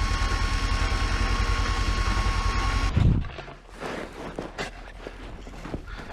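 Engine running steadily with a thin high whine over an even low pulsing, shutting off with a thud about three seconds in, followed by faint scattered knocks and clatter.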